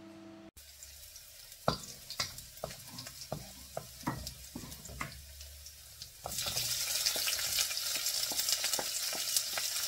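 Chopped garlic frying in oil in a stainless steel wok, a wooden spatula stirring and tapping against the pan about twice a second. The sizzle grows much louder about six seconds in.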